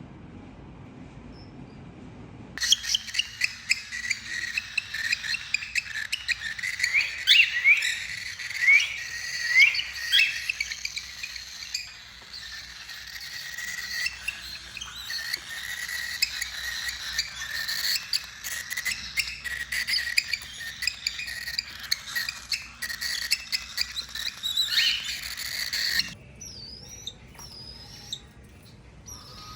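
Cockatiels chirping together in a dense, rapid, overlapping chatter that starts abruptly about two and a half seconds in and cuts off sharply a few seconds before the end. After that only a few single whistled calls remain.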